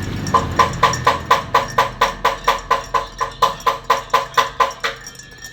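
A metal spoon clinking against the sides of a cup or glass as it stirs, about four or five ringing clinks a second in an even rhythm, fading and stopping near the end.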